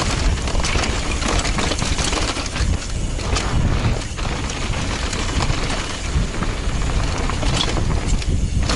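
Mountain bike descending a loose dirt and rock trail at speed: steady wind noise on the camera microphone with tyre noise on the dirt and frequent rattling clicks from the bike over rough ground.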